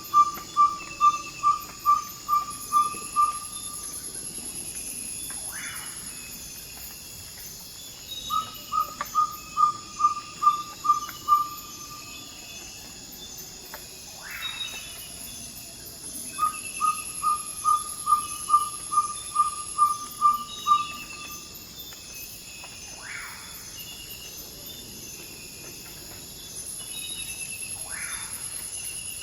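Ferruginous pygmy owl giving its territorial advertising call: three runs of repeated 'toop' whistles on one pitch, about three a second, with pauses between the runs. A steady high insect chorus runs underneath, and a few brief fainter calls from other night birds come in during the gaps.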